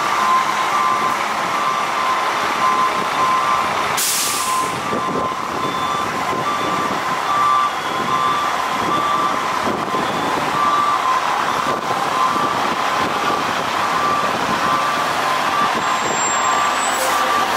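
International 4900 fire engine maneuvering on its diesel, its back-up alarm beeping steadily the whole time. There is a short air-brake hiss about four seconds in and another near the end.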